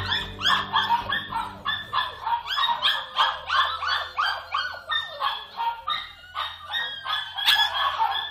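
Dogs in kennels barking and yapping without a break, a rapid run of high-pitched barks about three a second.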